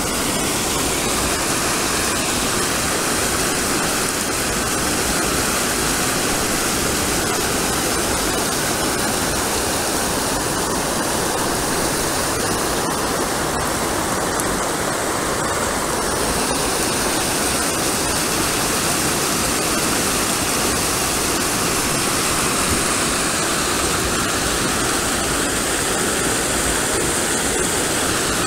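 Steady rush of river water pouring over a small falls, the river running high enough that water now flows over the top of it.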